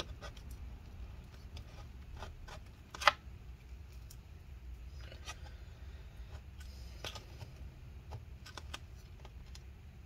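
Scattered small clicks, ticks and light scraping from hand work inside an opened MacBook Pro's aluminium case while old battery adhesive strips are peeled up, with one sharp click about three seconds in.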